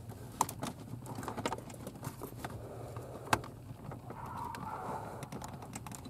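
Hands working among the under-dash wiring and plastic connectors: irregular small clicks and rustling, with one sharper click about three seconds in.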